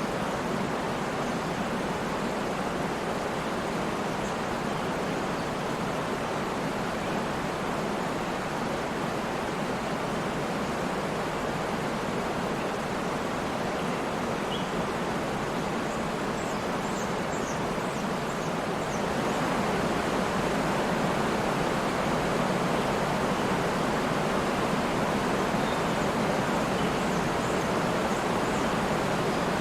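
Waterfall: a steady, even rush of falling water that swells slightly louder about two-thirds of the way through.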